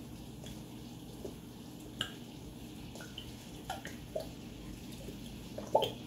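Thick oyster sauce dripping and plopping from an upturned bottle into a wok of sauce, in about seven separate drops, the loudest near the end, over a steady low hum.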